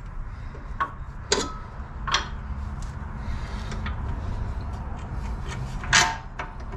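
A few sharp metal clinks and knocks as bolts are pushed through the front strut and steering knuckle, the clearest about a second and a half in and about six seconds in, over a steady low hum.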